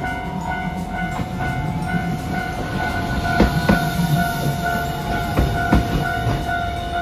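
Level-crossing warning bell ringing in a steady repeating pattern while a Hiroden low-floor articulated tram rumbles past close by. Its wheels clack sharply over rail joints a few times in the second half.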